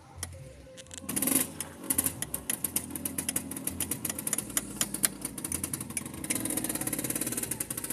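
A small two-stroke motorcycle engine runs unevenly, starting about a second in, with rapid irregular sharp pops over its hum.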